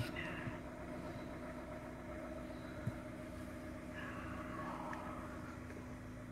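Maruti Gypsy safari jeep's engine running with a steady, even hum as the vehicle holds back at low speed.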